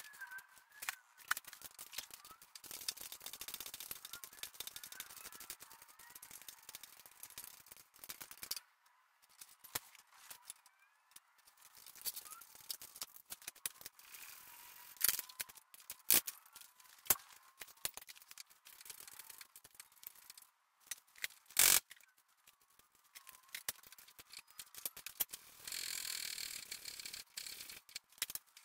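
Intermittent sharp clinks, knocks and rattles of tools and metal suspension parts being handled while a car's front suspension is stripped, with stretches of scraping and rustling.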